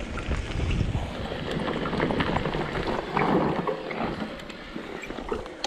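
Mountain bike descending a dirt trail: tyre noise over the ground with many quick rattles and knocks from the bike, and wind buffeting the microphone.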